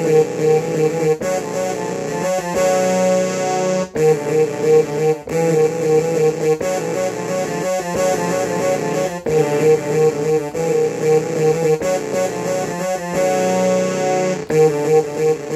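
Electronic keyboard playing a piece in a piano-like voice: sustained chords that change every second or so, with short breaks between phrases.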